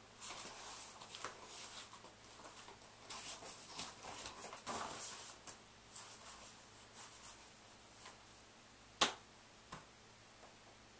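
Soft clothing rustle and light scuffs as a person moves into place. About nine seconds in comes a single sharp hand smack, with a smaller one just after.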